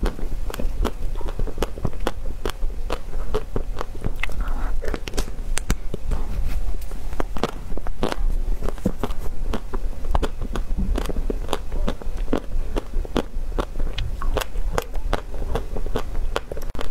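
Close-miked biting and chewing of a chocolate-coated ice cream bar studded with nuts: sharp crunches and crackles several times a second over a low steady hum.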